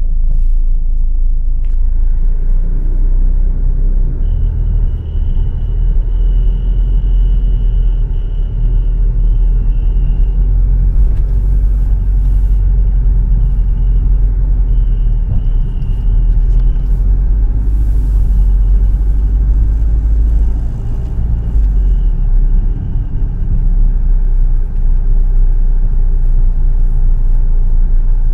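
Proton Gen2 car running with a steady low rumble, over which a thin high-pitched whistle comes in about four seconds in and then comes and goes. It is an unexplained whistle whose source the owner cannot trace.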